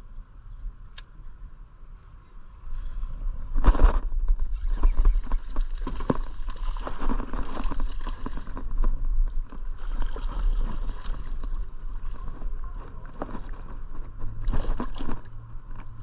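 Water sloshing and gurgling around a small fishing boat, with irregular knocks and clatter, growing louder about three seconds in.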